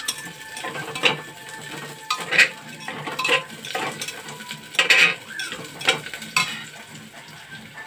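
Metal spoon scraping and stirring in an aluminium pot as onions fry in hot oil, with a light sizzle underneath; the scrapes come irregularly, about once a second, some louder than others.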